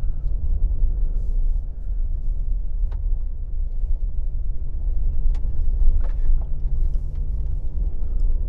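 Steady low engine and tyre rumble inside the cabin of a 2024 Subaru Crosstrek Wilderness driving on a dirt and gravel forest road. A few sharp clicks come through, about three seconds in and twice more a couple of seconds later.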